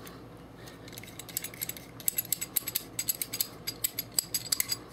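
Light metal clicking and ratcheting as a wing nut is spun by hand onto the bolt of an NC Star AR-15 carry-handle scope mount: a quick, irregular run of small ticks, several a second, thickening about a second in.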